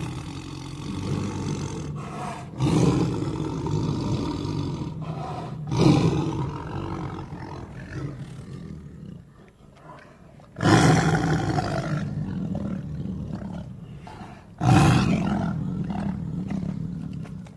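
Lion roaring, a series of deep roars in a row, each starting loud and fading away over a few seconds, about four of them.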